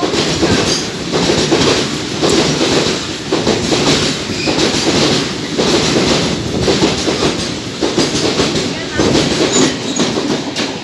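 Freight train of covered wagons passing close by at speed, its wheels clattering over the rail joints. The clatter swells in a repeating rhythm about once a second as the wagons go by.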